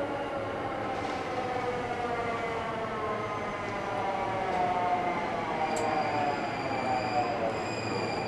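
JR East E231-500 series Yamanote Line electric train pulling in and braking, its inverter motor whine slowly falling in pitch as it slows. A thin high squeal joins in past the middle.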